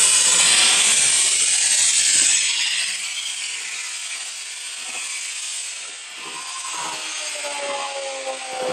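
E9-8 black-powder model rocket motor firing at liftoff: a loud rushing hiss that builds just before the start, holds for about two and a half seconds, then fades as the rocket climbs away.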